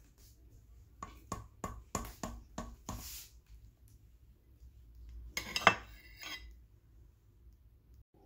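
Metal kitchen tongs clicking and tapping, a quick run of about seven clicks, then a louder clatter with a ringing clink against a ceramic plate a couple of seconds later as a piece of meat is set down.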